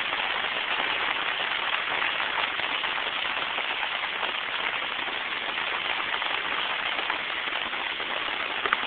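Steady rain falling onto flooded pavement and standing water, an even hiss, with a couple of faint clicks near the end.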